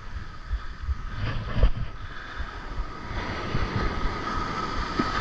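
Wind buffeting the microphone over breaking surf. From about three seconds in, a steady whine comes from the spinning reel as its handle is cranked to bring in a fish on the bent rod.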